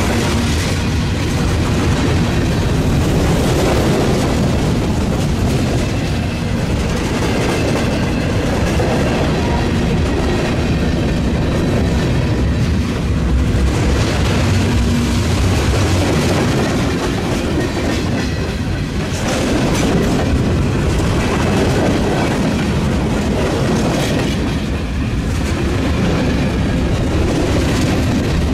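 Freight train cars, mostly tank cars and covered hoppers, rolling past close by: a loud, steady rumble of steel wheels on rail with repeated clicks as the wheels cross rail joints.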